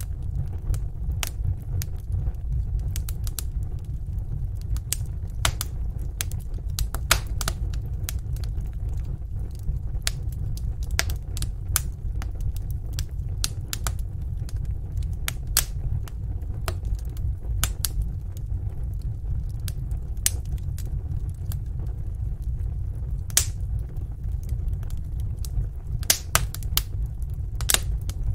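Fire in a fireplace crackling: irregular sharp pops and snaps over a steady low rumble.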